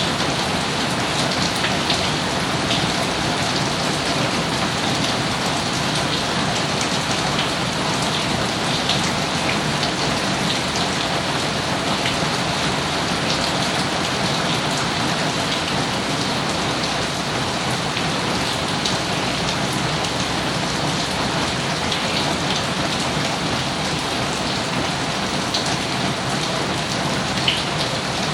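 Steady rain falling on surfaces, with scattered drop ticks and one sharper tick near the end.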